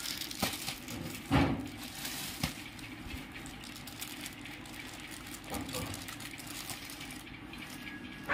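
Clear plastic polybags and a plastic sack rustling and crinkling as packed T-shirts are handled and shifted, with a louder crackle about a second and a half in.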